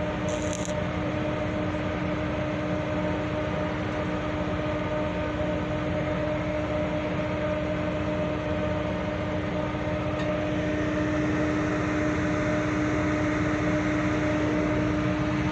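Construction-site machinery running with a steady drone and a constant low hum, getting slightly louder about two-thirds of the way through.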